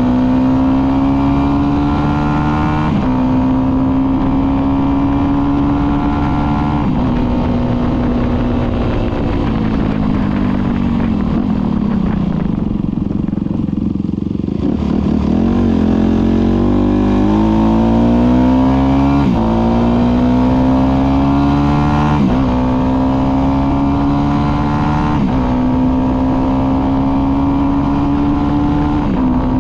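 Motorcycle engine under way, climbing slowly in pitch and dropping back at each upshift, every three to four seconds. About a third of the way in it slows and the engine note falls away, then it picks up again and runs up through several more shifts.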